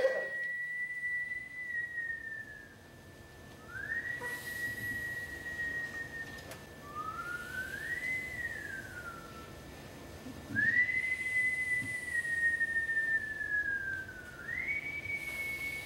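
A person whistling a slow line of five long held notes. Each note slides up into its pitch or falls away at its end.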